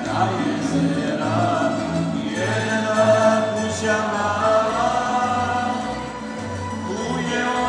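Tamburica orchestra playing a folk song, with plucked tamburicas and a double bass (berde) sounding a pulse of low notes underneath while a voice sings the melody.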